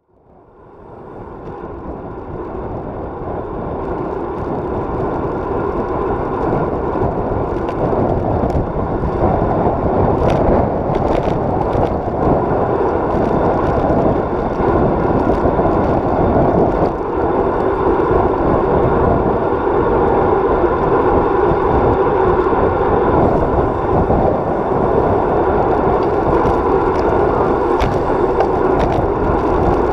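Steady rolling rumble and wind noise from a road bike in motion, picked up by a camera fixed to its handlebars; it fades in over the first few seconds and then holds level, with a few faint clicks.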